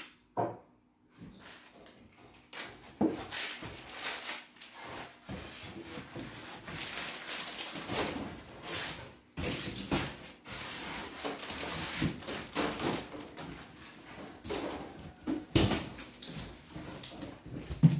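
Packing handling noise: styrofoam and cardboard scraping and rubbing as the packing is pulled out of a shipping box, with plastic wrapping rustling. It starts about two seconds in and is broken by several sharp knocks, the loudest near the end.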